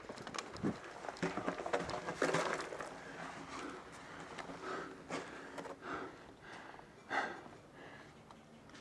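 Scuffing, scraping and knocking of boots and gear as a player crawls into a culvert pipe, busiest over the first few seconds and then quieter, with breathing heard in the enclosed pipe.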